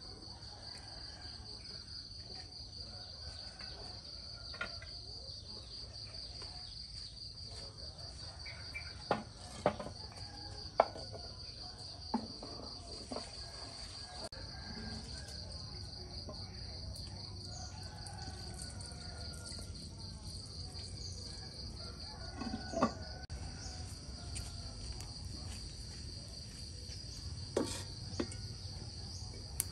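Steady high-pitched insect chorus trilling throughout, with a few scattered light knocks.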